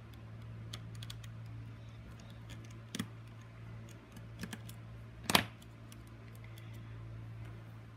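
Small, irregular clicks and taps of a precision screwdriver and small tools working on the inside of an iPhone 6, with two louder clicks about three and five and a half seconds in, over a steady low hum.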